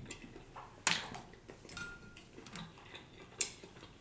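Quiet eating sounds: soft clicks and ticks of a plastic fork scooping rice in a glass food container, with chewing. The sharpest clicks come about a second in and again near three and a half seconds.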